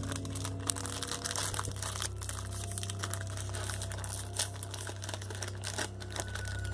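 Thin plastic packaging crinkling as it is handled, a dense run of small irregular crackles over a steady low hum.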